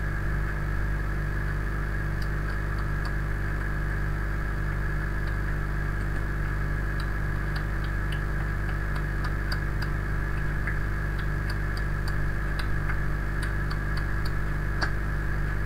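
Steady electrical mains hum with hiss on the microphone line, with scattered faint ticks from about two seconds in.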